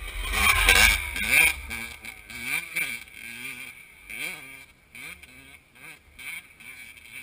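Youth dirt bike passing close, loudest about a second in, then revving up and down through the gears as it rides away, fading toward the end.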